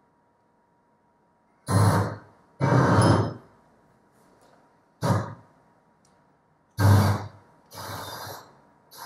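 A video's soundtrack played through loudspeakers comes out in about six short fragments, each starting and cutting off abruptly with gaps between them, as the online playback stalls and will not run properly.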